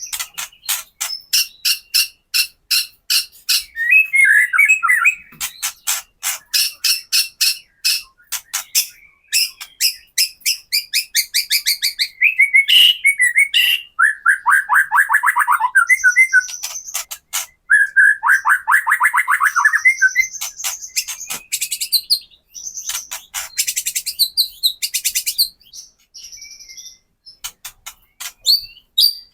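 White-rumped shama (murai batu) giving its rattling 'kretekan' call: strings of sharp ticks a few times a second, broken by fast trills and whistled phrases. It is an agitated call, played as a lure to rouse other shamas to sing and fight.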